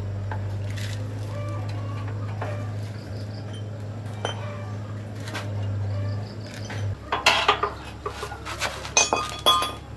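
Metal parts and tools clinking and clanking as a motorcycle's rear wheel hub is worked on by hand, with the sharpest clanks in the last three seconds. A steady low hum stops about seven seconds in.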